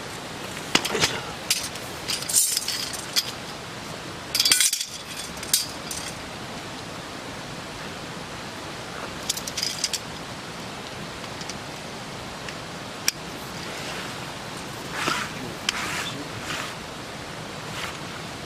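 Metal poles of a DOD (Doppelganger) camp cot clinking and knocking together, with the nylon cot bed rustling as a pole is fed into its sleeve. The clinks come in irregular clusters, with a quieter stretch in the middle, over a steady background hiss.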